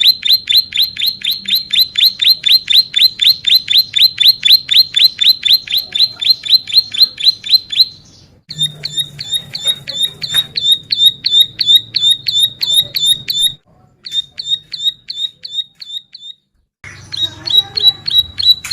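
Ciblek sawah (plain prinia) singing a long, fast series of sharp, high repeated notes, about six a second. The series breaks off briefly three times, the last time for about a second, and resumes with slightly changed notes.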